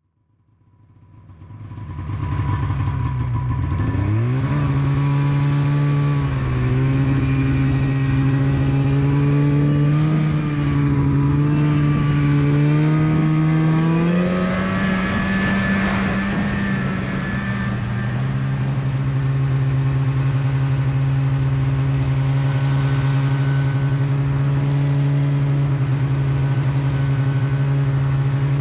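Snowmobile engine running under way. It fades in at the start, its pitch rises about four seconds in and again about fourteen seconds in, then drops back a little and holds steady.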